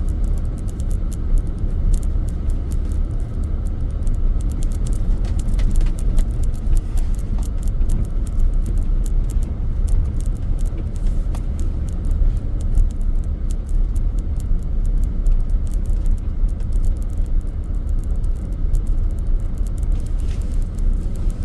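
Chevrolet Suburban driving through deep, rutted snow, heard from inside the cabin: a steady low rumble of engine and tyres, with many faint scattered clicks.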